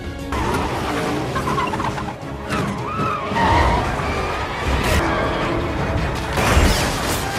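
Film car-chase soundtrack: car tyres squealing and skidding with engine noise, over music. There are sharp crash impacts about five and six and a half seconds in.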